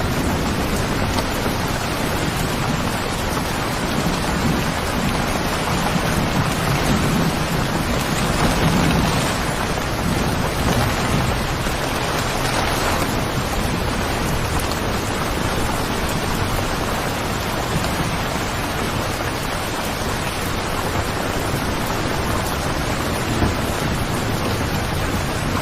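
Steady, heavy rain falling, with a low rumble of distant thunder that swells and fades during the first ten seconds or so.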